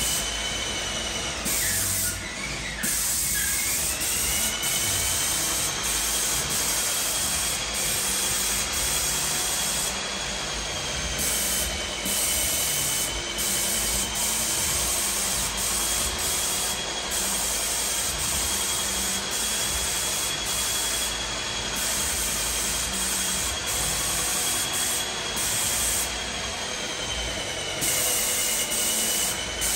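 Paint sprayer hissing steadily as paint is sprayed onto bare drywall, with a steady high whine under the hiss. The hiss drops briefly a few times as the spray gun's trigger is let off.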